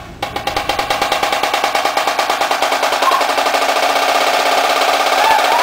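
Marching snare drum played as a fast, even roll that starts a moment in and grows steadily louder.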